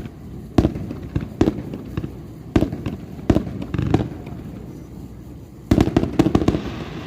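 Aerial firework shells bursting with a series of booms, one every half second to second, then a rapid cluster of bursts a little before the end.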